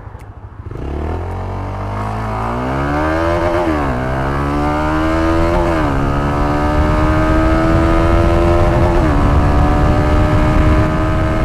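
Honda Supra GTR150's single-cylinder engine, breathing through an MVR1 aftermarket power-pipe exhaust, pulling hard from a standstill in a 0-to-100 acceleration run. The revs climb steadily in each gear, with three upshifts heard as sudden drops in pitch about 4, 6 and 9 seconds in.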